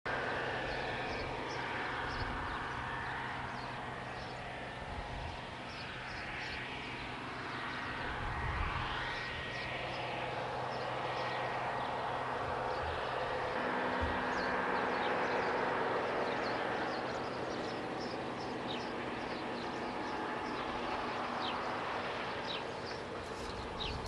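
Deutz-Fahr Power Liner Climber combine harvester running steadily while harvesting, a low engine hum and machinery clatter; the hum steps up in pitch about halfway through. Short high chirps sound repeatedly over it.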